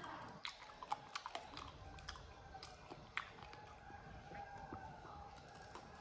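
Chewing and biting on cooked chicken feet, with sharp crunching clicks in the first half.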